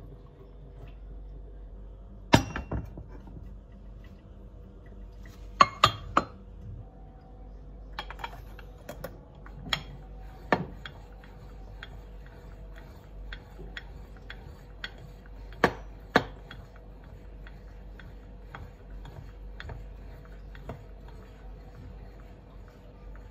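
Metal saucepan and ceramic teapot clinking and knocking against each other, with the teapot's lid being handled. There are sharp clinks about 2, 6 and 16 seconds in, and lighter ticks between them, over a faint steady hum.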